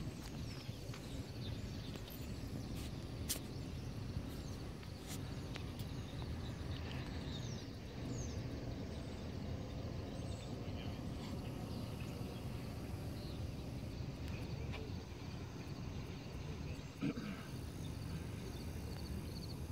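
Steady low outdoor background rumble, with a few faint high chirps now and then and some small clicks.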